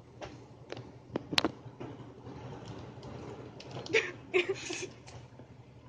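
Quiet room tone with a low steady hum, a few sharp clicks about a second in, and a brief burst of a person's voice, like a short laugh, about four seconds in.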